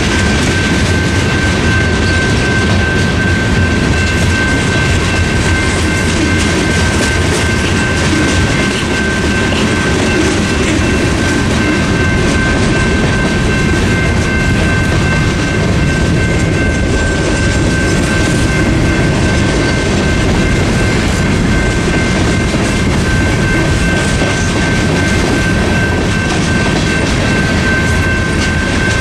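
Freight train of tank cars and covered hoppers rolling steadily across a grade crossing. A General Signals Type 2 electronic crossing bell rings over it in a steady high tone while the signals flash.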